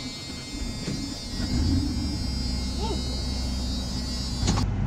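1997 Ford F350's 5.8-litre gas V8 running at idle, heard from inside the cab. The low engine rumble comes up about a second and a half in and holds steady, with a thin high whine over it that stops abruptly near the end.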